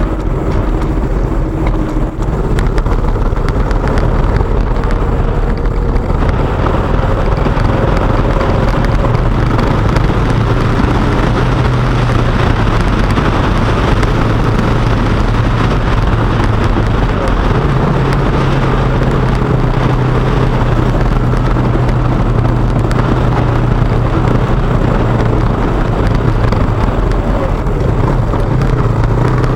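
KTM motorcycle engine running while riding, its note stepping up in pitch a couple of times and dropping near the end, with wind rushing over the microphone that grows louder about six seconds in.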